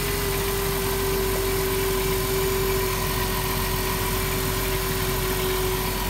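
2007 Dodge Grand Caravan's V6 engine idling steadily, with a steady whine over the idle. It runs smoothly, no longer misfiring or dieseling, now that the number two spark plug wire that was shorting to the engine block has been replaced.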